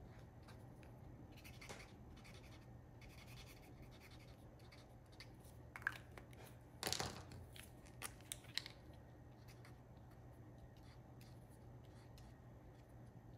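Faint scratching of paint-marker tips drawing on black cardstock, with a few brief louder scrapes and taps around the middle as one marker is put down and another taken up.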